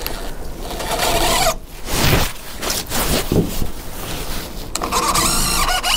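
Scraping and knocking from work overhead on shed roof timbers, then a cordless drill whirring and rising in pitch near the end.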